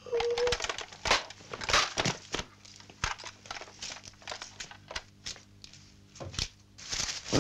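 Irregular crackling: a run of sharp snaps and clicks of varying loudness, thickest in the first half.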